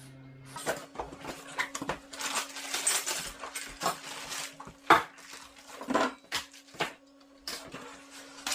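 Boiler fittings from the box being handled and set down: metal valves, nuts, pipes and washers clinking and knocking irregularly, with one sharp knock about five seconds in. A faint steady hum runs underneath.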